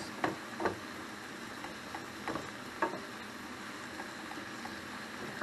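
Water spinach stir-frying with soy sauce in a frying pan: a steady sizzle, with a few light knocks of wooden spatulas against the pan as it is stirred.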